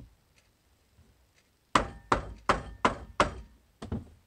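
Wooden soap loaf mold with a silicone liner, full of thick raw soap batter, banged down on the counter about six times in quick succession, roughly three knocks a second, to settle the thick batter and knock out air pockets.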